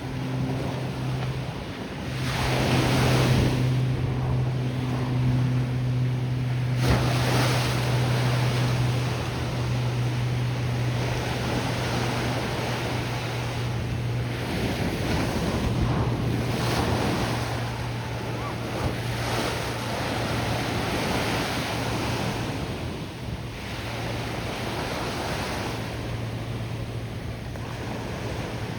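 Ocean surf washing and breaking, swelling and ebbing in waves of noise, with wind on the microphone. A steady low hum runs underneath and breaks off briefly a few times.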